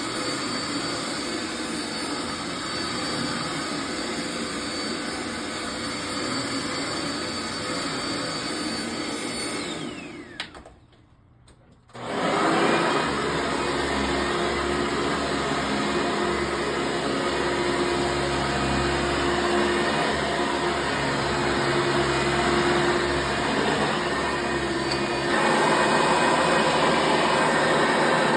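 Two vacuum cleaners run one after the other. The first runs steadily with a high whine, then winds down and stops about ten seconds in. After a short pause a second vacuum starts with a lower hum and runs steadily, getting a little louder near the end.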